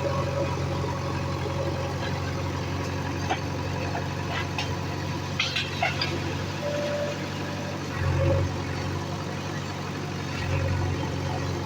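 Heavy diesel engine running steadily, rising briefly twice in the second half, with a few short high squeaks and clicks about five seconds in.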